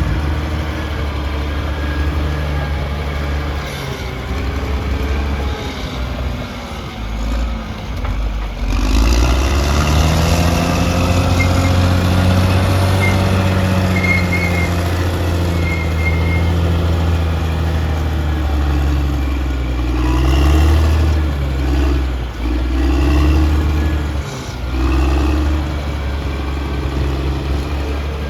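Caterpillar D6R XL bulldozer's diesel engine running under working load, its pitch rising about a third of the way in and then rising and falling as the load changes, with a few brief high squeaks in the middle.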